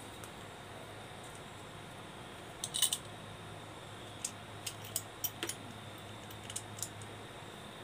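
Light metallic clicks and clinks from a copper-pipe flaring tool's steel clamp bar being handled. There is a quick cluster about three seconds in, then scattered single clicks.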